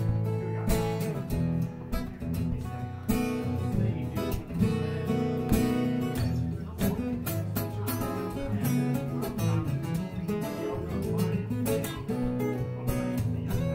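Solo acoustic guitar strummed and picked in a blues style, without vocals: the instrumental opening of the song.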